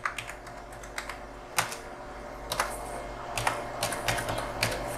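Computer keyboard keys being typed in irregular bursts of sharp clicks as a password is entered, over a low steady hum.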